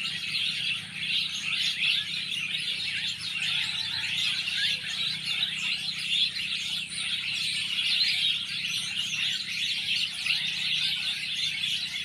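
A flock of small birds twittering together in a continuous, dense high chatter.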